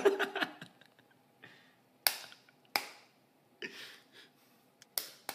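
Bump hammer tapping a bump key in a Master padlock: a few sharp, irregularly spaced metal taps as the key is struck to bump the pins.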